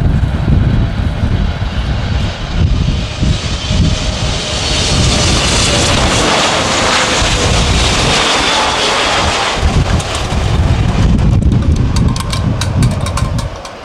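Jet noise from a British Airways Boeing 777's twin engines as it comes in to land, with a deep rumble throughout. A wide hiss swells to its loudest from about four to ten seconds in as the airliner passes low, then eases as it settles onto the runway.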